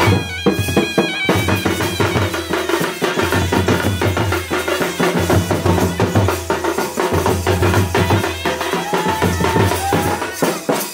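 Raut Nacha folk band music: drums beating a fast, busy rhythm with a shrill wind instrument playing a sustained melody over them.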